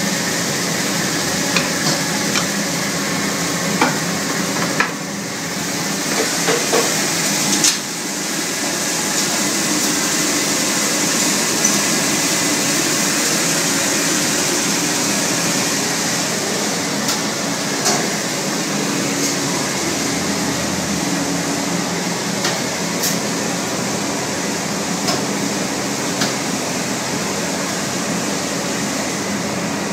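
Steady machinery hiss and hum of a running mesh-belt chain soldering and annealing tunnel furnace, with scattered sharp clicks and knocks.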